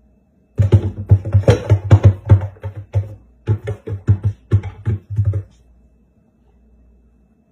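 A cat's paws rapidly batting against a wooden kitchen cabinet door, making a quick run of loud thumps and taps, about five a second. The run comes in two bursts with a short pause between them.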